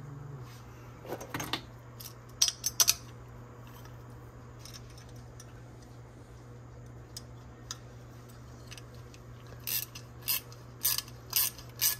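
Small metal parts and hand tools clicking and clinking while the 3D printer's bed carriage is taken apart: a few scattered sharp clicks, a quieter stretch, then a quick run of clicks near the end. A steady low hum runs underneath.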